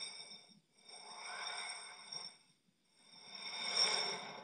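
Soundtrack of a TV-news intro clip playing back at low volume: two swells of rushing whoosh noise, the second louder, over thin steady high tones, dropping almost to nothing between them.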